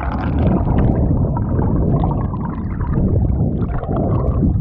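Muffled water sloshing and gurgling close to the camera's microphone, with a constant low rumble and small crackling bubbles.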